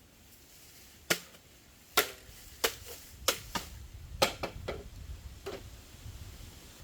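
Chopping: a blade striking wood in about nine sharp blows at uneven intervals, the loudest in the first few seconds.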